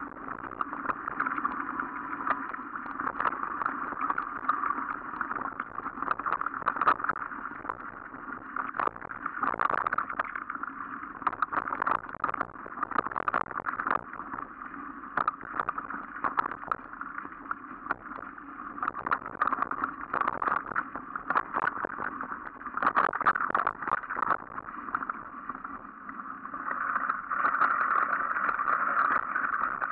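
Mountain bike rolling along a dirt forest trail: a steady rush of tyre and wind noise, with frequent rattles and knocks as it goes over bumps.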